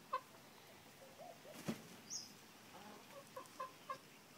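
Hens clucking quietly: a single short cluck at the start, a soft warbling call, then a quick run of four clucks near the end. One sharp knock sounds about halfway through.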